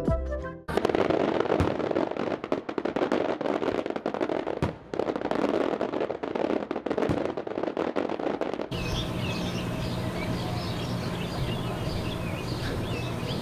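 Fireworks crackling and popping in a dense, continuous run for about eight seconds. Then an abrupt change to a steady low hum with high chirps over it.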